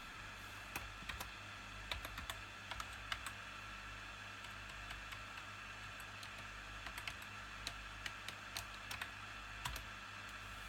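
Typing on a laptop keyboard: irregular key clicks, some in quick runs, over a steady low background hum.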